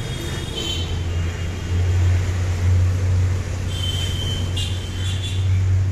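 Road traffic: a nearby motor vehicle's engine running with a steady low rumble that sets in about a second in and grows louder, with a few short high-pitched sounds over it.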